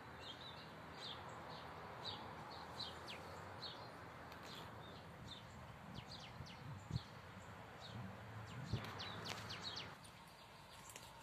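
Small birds chirping, short high calls repeating every second or so over faint steady outdoor background noise. Two soft low thumps come in the second half.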